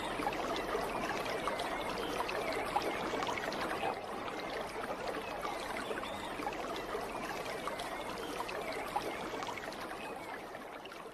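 Running water with a trickling, crackly texture, like a stream, slowly fading out near the end.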